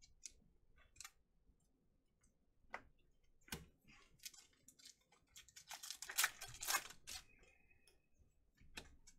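Trading cards from a Panini Chronicles Baseball foil pack handled by hand: faint clicks and snaps as the cards are flicked through, and a burst of foil wrapper crinkling a little past the middle.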